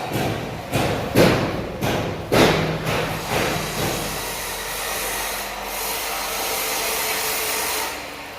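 A run of about seven knocks and scrapes from work on a truck, then a steady rushing hiss that dies away near the end.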